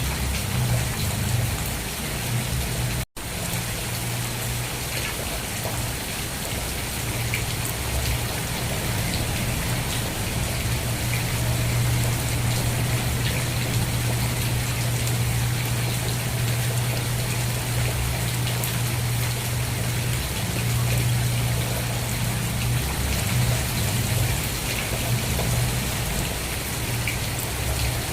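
Steady rain falling, an even dense patter, over a low steady rumble. The sound cuts out for an instant about three seconds in.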